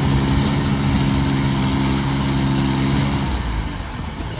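Diesel tractor engines, a Swaraj 855 and a Mitsubishi mini tractor, running hard under load as they pull against each other on a chain. The engine note holds steady, then falls away about three and a half seconds in.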